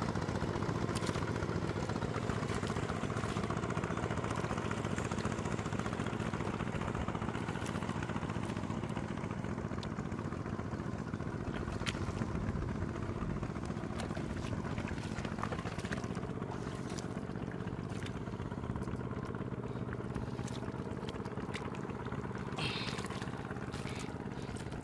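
A steady, low engine drone runs throughout, with scattered short wet squelches and splashes as hands dig through soft mud.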